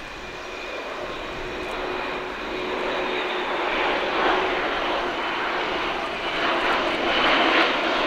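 An Airbus A400M's four Europrop TP400-D6 turboprop engines with their eight-bladed propellers, heard in flight as the airlifter passes. The sound grows steadily louder as it comes nearer: a steady propeller tone over a rushing engine noise.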